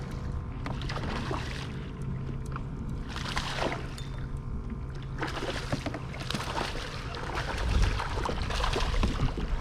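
Water sloshing and splashing around a kayak as a hooked fish is played alongside, in irregular splashes, with low rumbling growing near the end.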